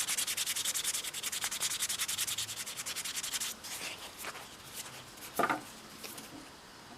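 Hand sanding of a translucent plastic screwdriver handle with 320-grit sandpaper: quick, even back-and-forth strokes, about eight a second, that thin out to scattered strokes after about three and a half seconds, with one louder rub about five and a half seconds in.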